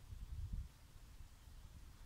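Wind buffeting the microphone outdoors: an uneven low rumble in gusts, strongest in the first half second, over a faint hiss.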